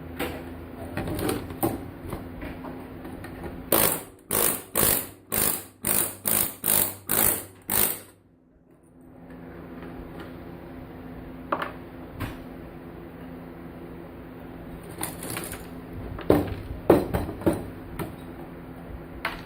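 Pneumatic air chisel hammering in about ten short, loud bursts over four seconds, knocking chips and components off a circuit board, then stopping suddenly. Afterwards a steady hum with a few scattered clicks and taps.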